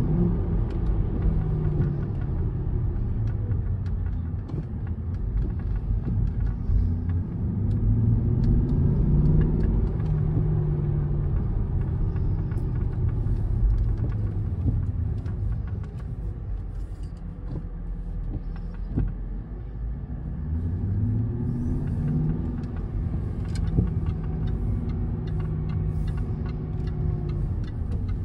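Jaguar XKR's supercharged V8 heard from inside the cabin while driving, over a steady rumble of road noise. The engine note rises and falls with changes of speed, climbing again about two-thirds of the way in as the car pulls away.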